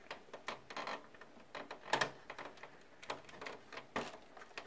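Faint, irregular clicks and plastic taps of hands working inside a desktop PC case, pushing a SATA data cable connector onto a solid-state drive, with the louder knocks about two and four seconds in.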